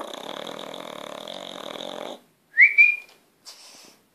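Sleeping pug snoring: a long rattling snore for about two seconds, then a short high squeak that rises in pitch, the loudest sound, then a fainter breath near the end.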